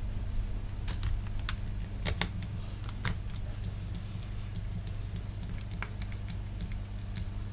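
Scattered light clicks and taps at irregular intervals, over a steady low electrical hum.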